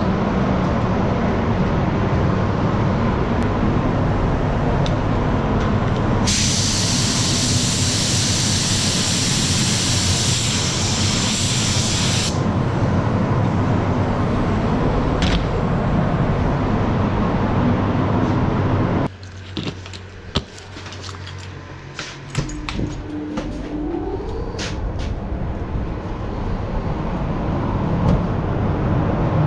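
Compressed air hissing steadily for about six seconds over a loud, steady rumble. About two-thirds of the way through the rumble drops sharply, then come scattered clicks and a short rising tone.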